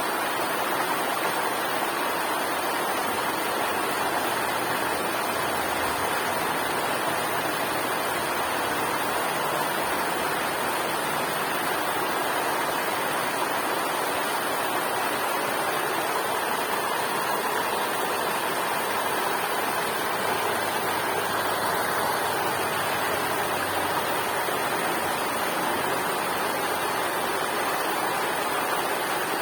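River water rushing steadily, an unbroken even roar of flowing water with no breaks or changes.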